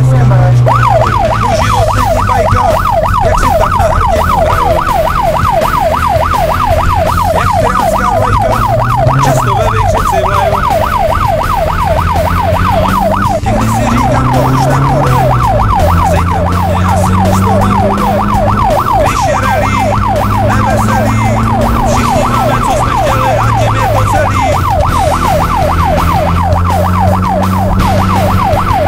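A loud siren-like wail in a fast yelp of about four sweeps a second, over a car engine whose revs slowly rise and fall.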